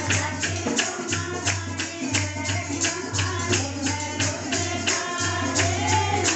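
Devotional kirtan music played live: voices singing a bhajan to a steady drum beat of about four strokes a second, with jingling percussion such as a tambourine or rattle.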